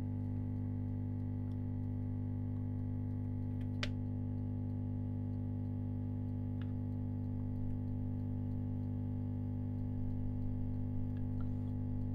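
Heat gun running with a steady low hum from its blower, aimed at an e-ink screen to soften the double-sided tape under it. There is one small click about four seconds in.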